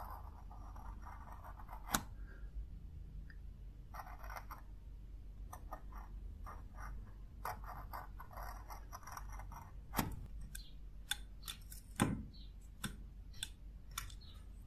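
Pointed craft-knife blade scraping and scoring a thin metal disc in short strokes, with several sharp clicks; the loudest clicks come about two, ten and twelve seconds in. A steady low hum runs underneath.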